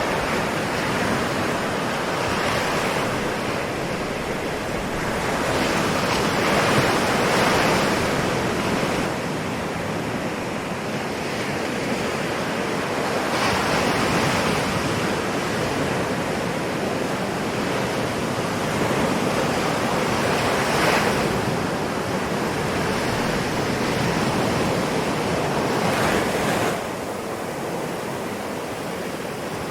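Ocean waves: a continuous wash of surf that swells about every six or seven seconds as each wave breaks, then eases back.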